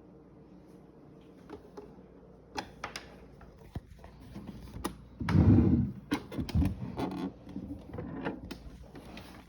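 A series of clicks and knocks from something being handled, with one louder, longer low thump about five and a half seconds in.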